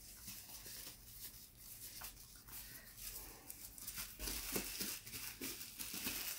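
Paper and thin cardboard packaging rustling and crinkling as it is handled, with small scrapes and clicks, louder in the second half.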